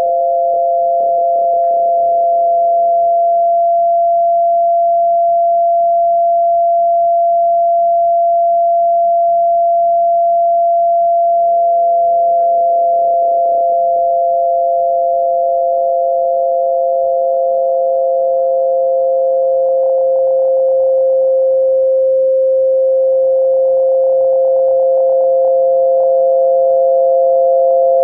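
Synthesized pure tones for tinnitus masking: two steady mid-pitched tones close together in pitch. The lower tone fades out a few seconds in and fades back in about eleven seconds in.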